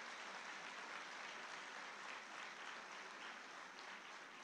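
Large seated audience applauding, a steady dense clapping that eases slightly near the end.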